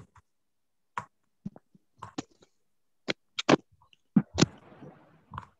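About a dozen irregular short knocks and clicks, cut off sharply between each, with a brief stretch of faint rustling noise past the middle, coming through a video call's audio.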